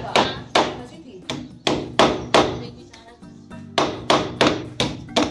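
Hammer blows on a PVC drain pipe: about a dozen sharp knocks, each ringing briefly, in two runs with a pause of about a second in the middle.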